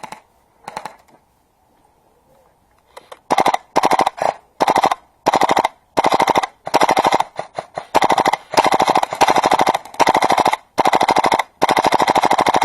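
Airsoft rifle firing on full auto in repeated short bursts, a rapid rattle of shots. A couple of single pops come first. About three seconds in the bursts begin and follow one another with barely a pause, the last one running on for over a second.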